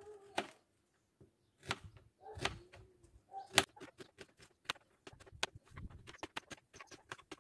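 Knife slicing an onion on a plastic cutting board: sharp taps of the blade on the board, a few spaced out at first, then quickening to several a second after about three and a half seconds.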